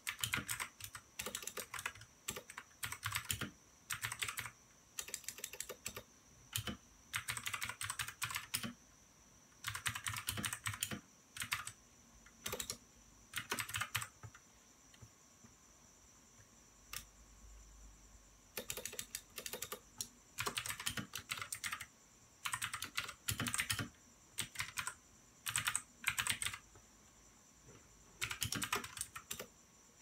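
Typing on a compact backlit keyboard: quick runs of key clicks in short bursts. About halfway there is a pause of a few seconds, broken by a single mouse click.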